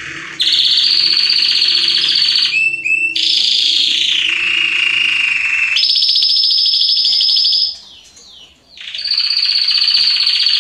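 Red-factor canary singing long, fast rolled trills, one of them gliding down in pitch partway through, with a short pause about eight seconds in.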